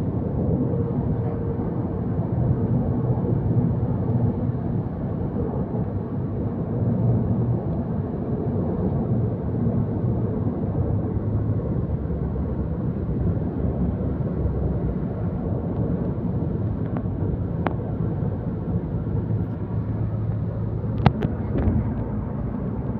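Steady low rumble of a running vehicle with a faint engine hum, with one sharp click about 21 seconds in.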